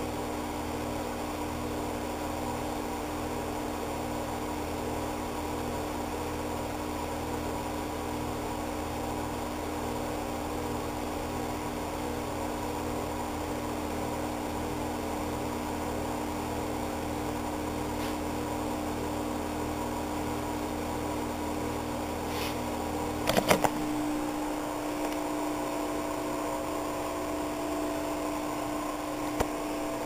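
Steady mechanical hum with a low rumble underneath. A short cluster of sharp clicks about three-quarters of the way in, after which the low rumble drops out, and one more click near the end.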